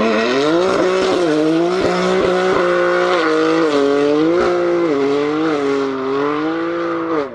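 Car engine sound, a steady running note that rises and falls gently in pitch as if lightly revved, cutting off suddenly near the end.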